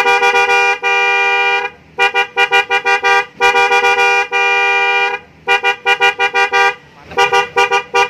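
A pair of Denso snail horns on a Yamaha NMAX scooter blaring a two-tone chord, beeped in runs of rapid short toots broken by two longer held blasts of one to two seconds.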